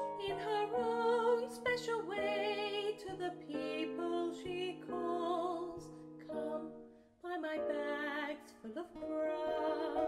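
Woman singing a slow melody with vibrato, accompanied by piano and acoustic guitar, with a short break in the voice about seven seconds in.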